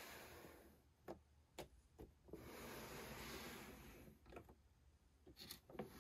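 Faint handling noise: a cardboard display box with a clear plastic window being rubbed and turned by hand, with several light taps and clicks.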